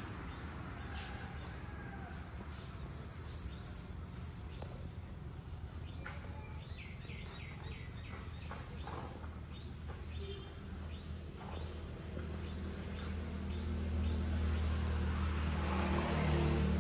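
Insects chirping in short pulsed trills that recur every few seconds, over a low hum that grows louder near the end.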